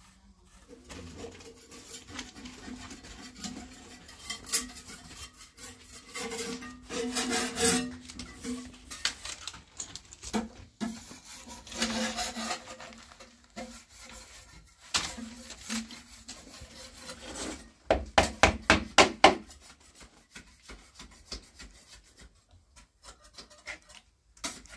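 Wood being worked with a hand tool: repeated rubbing and rasping strokes over a steady low tone, with a quick, louder run of about eight strokes near the end.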